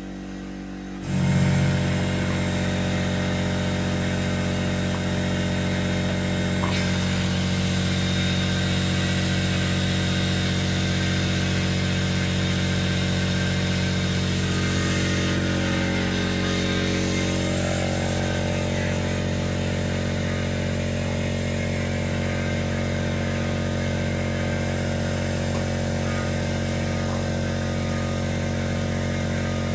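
A motor-driven machine or engine starts abruptly about a second in and then runs steadily with a loud, even drone.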